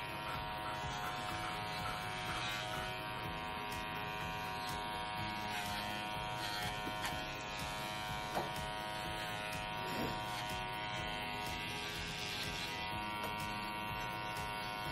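Cordless PettingPal pet hair clippers running with a steady, even-pitched buzz while trimming the hair between a dog's paw pads.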